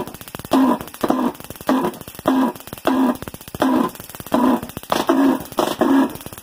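Propane-fed Tesla-valve pulse jet engine firing intermittently in short, loud pulses, about three every two seconds, over a fast steady ticking from its spark igniter.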